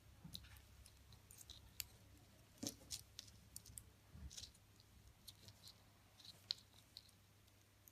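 Faint, irregular clicking of metal knitting needles as stitches are worked.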